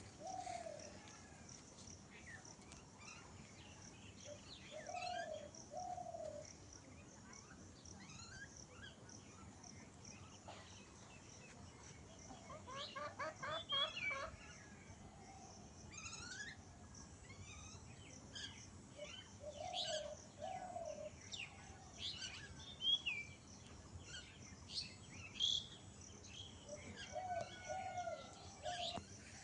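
Doves cooing in repeated two-note phrases every several seconds, with small birds chirping and a short, rapid chattering call about halfway through.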